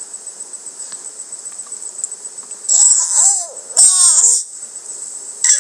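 Infant vocalising: two loud, high-pitched squeals with rising-and-falling pitch about three and four seconds in, and a short burst near the end.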